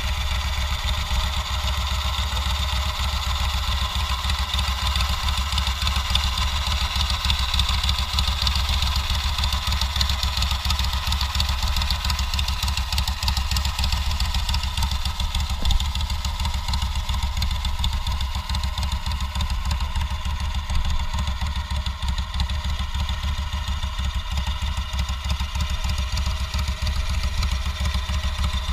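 A 20 hp Kohler Command V-twin lawn-tractor engine with custom-built headers, fitted to a home-built board-track motorcycle, idling steadily with an even, rapid exhaust pulse.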